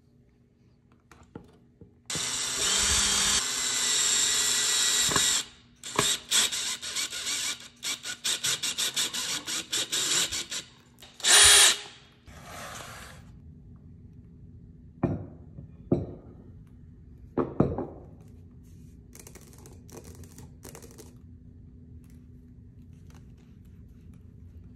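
Cordless drill driving a screw into the toe of a platform sandal: a steady run of about three seconds, then a string of quick short bursts on the trigger, and a last loud short burst. A few knocks and faint clicks of handling follow.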